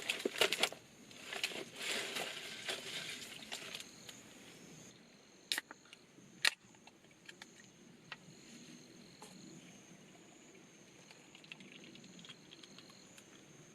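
Rustling and clicking handling noises, heaviest in the first few seconds, with two sharp clicks in the middle, over a steady high-pitched insect trill.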